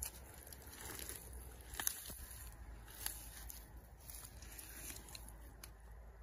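Bare hands digging and pulling at wet mud and dry rice straw, chasing a rice field eel along its burrow: faint, with a few short crunches and crackles.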